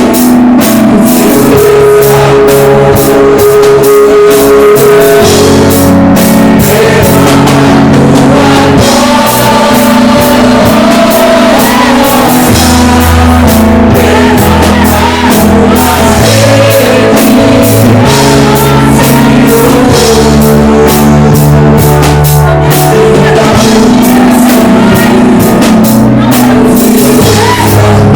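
Live worship band playing loudly: drum kit, bass and guitar, with singing over it.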